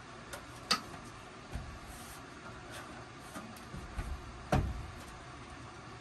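A few sharp clicks and knocks from hands handling the plastic housing of a Ryobi cordless propane heater and taking a cardboard tag off it, the loudest about four and a half seconds in, over a faint steady hiss.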